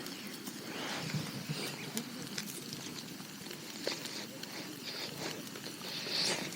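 Meat sizzling on a barbecue grill: a steady hiss with scattered small pops and crackles.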